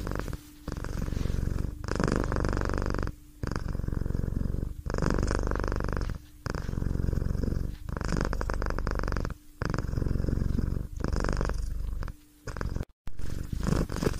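Domestic cat purring close up, in a regular rhythm of purrs about a second and a half long with a short break at each breath.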